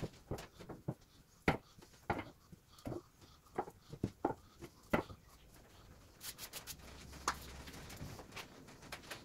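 Wooden strips being set down one after another onto a stack on a wooden workbench, a dozen or so light wooden knocks over the first five seconds, followed by fainter scuffs and ticks.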